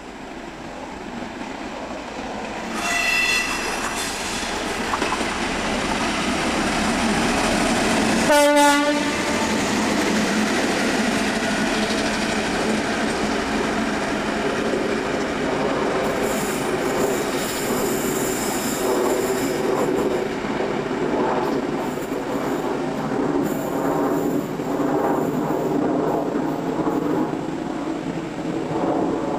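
British Rail Class 58 diesel-electric locomotive passing, its engine running. The horn sounds twice: a short high note about three seconds in, then a louder, lower blast at about eight seconds.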